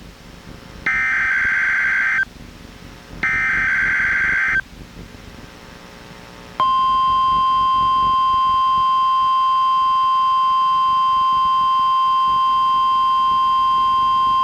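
NOAA Weather Radio emergency alert signalling played through a weather radio. It opens with two screeching digital SAME header data bursts about a second and a half apart. After a pause of about two seconds, the steady 1050 Hz warning alarm tone starts and holds unbroken.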